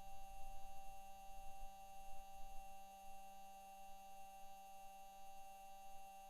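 Microphone recording of NASA's Perseverance rover driving on Mars: an uneven low rumble from the wheels and drive that fades after about three seconds, under steady electrical hum tones.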